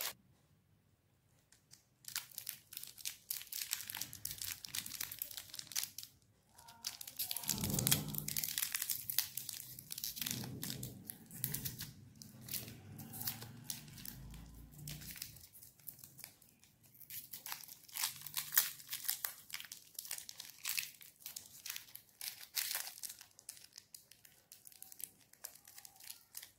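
Crinkly plastic candy wrapper crackling and tearing as fingers untwist and peel it open, in stretches with short pauses between.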